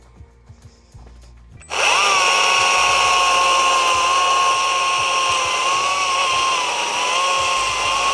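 Battery-powered STIHL MSA 60 C-B chainsaw starting up suddenly about a second and a half in and running at a steady high whine, its pitch sagging a little now and then as it cuts through the butt end of a log.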